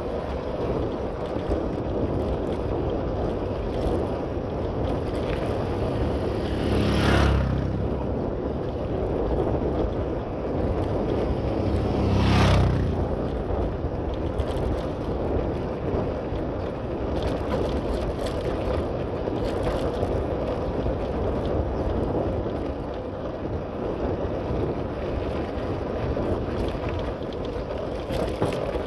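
Steady wind and road noise from riding a bike, with two louder swells about seven and twelve seconds in.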